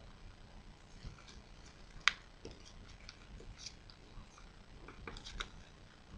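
Origami paper crinkling and crackling in the hands as it is folded and creased: scattered faint sharp clicks, with one louder crackle about two seconds in and a quick run of them around five seconds.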